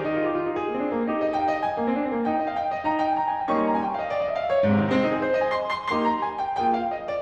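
Solo piano playing a classical piece: quick runs of notes with chords underneath.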